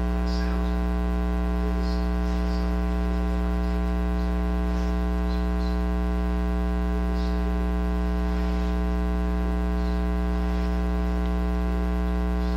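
Steady electrical mains hum with a ladder of harmonics on the recording, unchanging in level.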